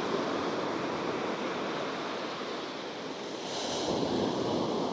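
Sea surf washing on the shore, a steady hiss of waves with a brighter wash about three and a half seconds in.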